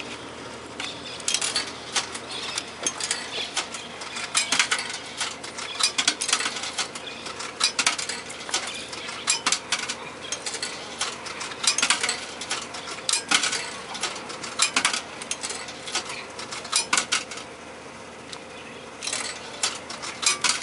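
Coins clinking irregularly as they are fed one at a time into a vending machine, over a faint steady hum.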